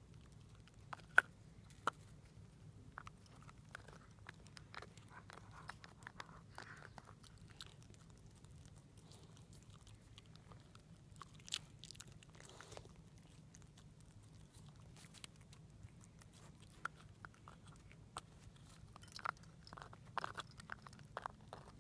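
Shiba Inu gnawing a hard Himalayan yak-milk cheese chew: scattered sharp crunches and clicks of teeth on the chew, a few of them louder, about a second in, near the middle and toward the end.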